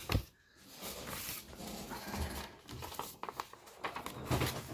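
Paper rustling and crinkling as a folded paper card or envelope is handled and opened, in irregular short crackles.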